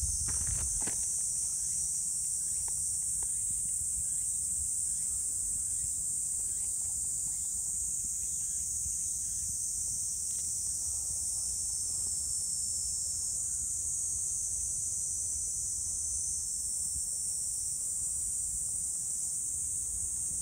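Steady, shrill insect chorus, a continuous high-pitched buzzing that does not let up.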